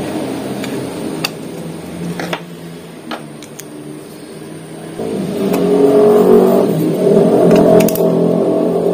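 An engine running, louder from about halfway through, with a few sharp plastic clicks from a laser toner cartridge being handled.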